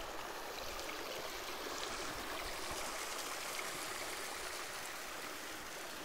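Mountain creek water running, a steady even hiss with no breaks, easing slightly near the end.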